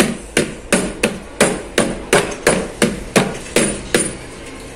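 Blender jar full of cake batter knocked down hard about a dozen times at an even pace of roughly three knocks a second, stopping about four seconds in: tapping to drive the air bubbles out of the batter.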